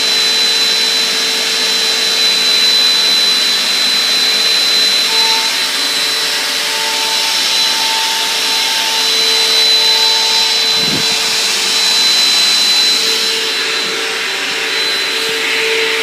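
Small single-motor vacuum cleaner running steadily with the dusting brush attachment on its hose: a rush of air with a steady high whine. A brief low thump about eleven seconds in.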